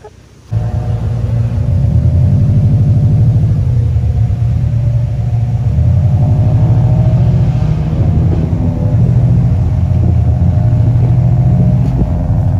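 Car engine and exhaust droning steadily under load, a loud deep rumble that cuts in suddenly about half a second in, with small rises and dips in pitch.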